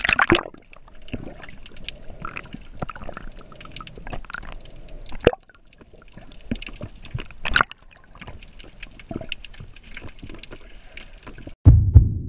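Underwater sound from a diver's camera as a spearfisher ducks under: a burst of splashing and bubbling at the start, then scattered crackles and clicks through the water, and a sudden loud low thump near the end.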